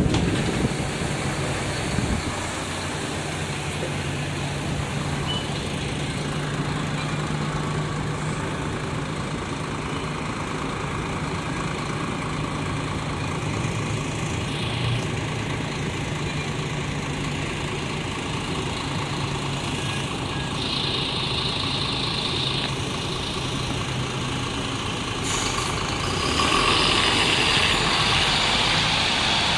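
Bus engine idling steadily, with bursts of compressed-air hissing about two-thirds of the way in and again near the end, typical of the pneumatic door gear and air brakes.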